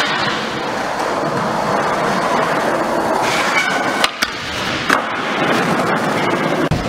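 Skateboard wheels rolling on a concrete floor. A board scrapes along a ledge about three seconds in, and sharp clacks of the board follow about four and five seconds in.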